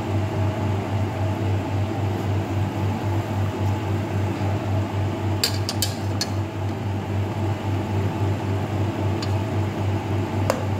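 Steady low mechanical hum, with a few light metallic clinks about halfway through and another near the end: a metal ladle touching the aluminium cooking pot.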